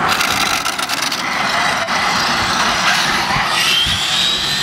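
Arrma Infraction 6S RC car's brushless electric drivetrain whining as the car accelerates away at full throttle, the whine rising in pitch about three and a half seconds in, over a steady rushing noise.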